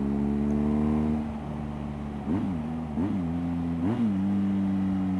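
BMW motorcycle with an aftermarket Akrapovic exhaust running on the road. The engine note holds steady, drops off about a second in, then rises and falls briefly three times before settling back to a steady cruise.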